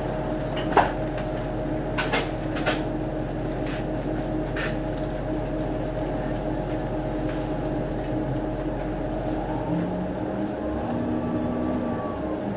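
Orion VII NG hybrid city bus heard from inside, its drivetrain giving a steady hum with a few sharp rattles in the first five seconds. About ten seconds in, a whining tone rises and holds.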